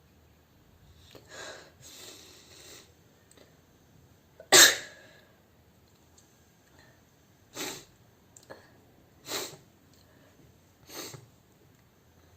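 A woman sneezing, set off by a handkerchief poked into her nose. A few soft breathy noises come first, then one loud sneeze about four and a half seconds in, followed by three shorter, quieter sneezes or snorts spaced under two seconds apart.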